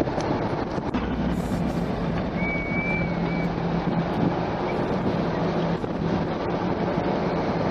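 A car driving at low speed, heard from inside: steady engine and road noise with wind rumbling on the microphone. A low hum runs through the middle, and a brief high whistle sounds about two and a half seconds in.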